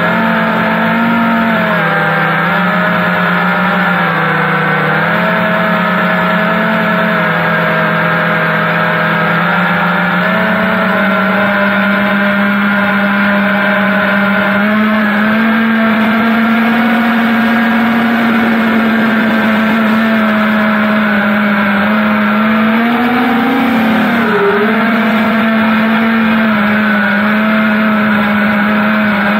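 FPV quadcopter's electric motors and propellers whining steadily, heard from the quad's onboard camera. The pitch drifts up and down a little with throttle, with a brief swoop in pitch late on.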